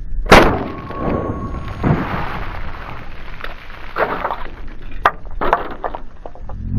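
A single loud blast from a 12-gauge pump-action shotgun with a shortened barrel, about a third of a second in, followed by several softer knocks and sharp clicks.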